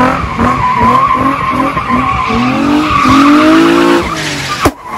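Nissan 350Z drift car sliding under power: the engine revs rise and fall repeatedly while the tyres squeal, the squeal easing after a couple of seconds. Near the end there is one sharp bang, the loudest moment.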